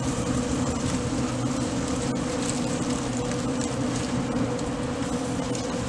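A steady buzzing hum from a small motor, with faint rustles and clicks of foil and towels being handled.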